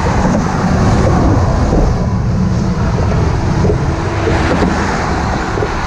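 Wind buffeting the microphone, loud and steady, mixed with the rush of traffic on the highway lanes beside the walkway.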